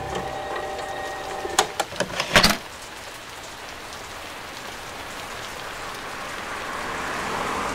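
Background music ending about a second and a half in, followed by a few sharp crackles, then a steady rain-like hiss that swells slightly near the end.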